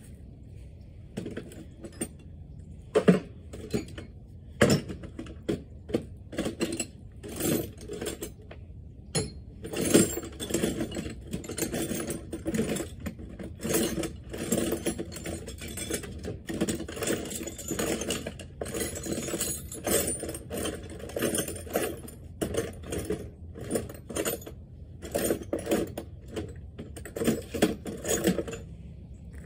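Small metal hand tools clinking and clattering as someone rummages through them, hunting for the right Allen wrench or bit; a few louder clanks stand out, about 3, 5 and 10 seconds in.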